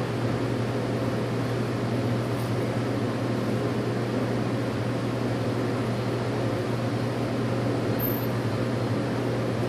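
Steady drone of a running fan unit: a constant low hum under an even rush of air.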